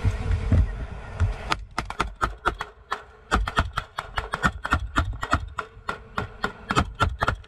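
Small-arms fire from a patrol boat: a long string of sharp shots, several a second at uneven spacing, starting about a second and a half in, over a low rumble.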